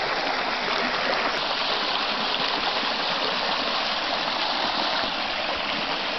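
Steady rush of water pouring over a small waterfall on a river.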